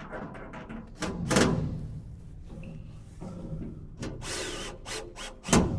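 Makita HP333D cordless drill-driver running in bursts as it drives screws into the cart's sheet-steel side wall, with two sharp loud clacks, about a second and a half in and near the end.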